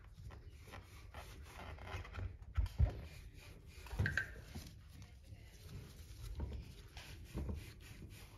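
Faint handling noises from a bicycle front hub being worked on by hand: light rubbing with a few soft knocks, the loudest about three and four seconds in.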